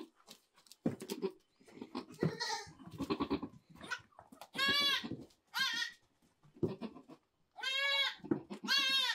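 Goats bleating: four loud, wavering bleats, two close together just past the middle and two more near the end, with quieter scuffing between.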